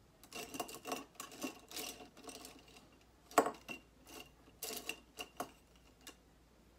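Paintbrushes rattling and clinking against the glass jar they stand in as a hand rummages through them, in irregular clusters of clatter. The sharpest knock comes a little past three seconds in, and the last clicks about six seconds in.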